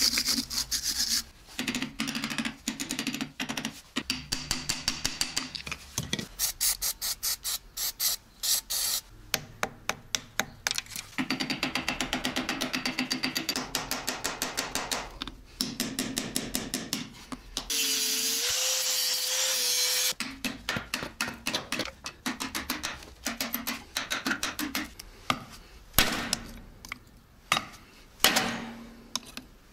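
Steel hand tools working on a KamAZ truck's brake assembly: long runs of rapid clicking and scraping strokes, then several sharp hammer blows on a punch near the end, driving at brake pins seized solid by corrosion. A steady whine lasts about two seconds a little past the middle.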